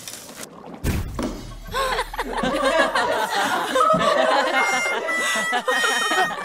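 Several people laughing and snickering together, starting after a sudden noise about a second in.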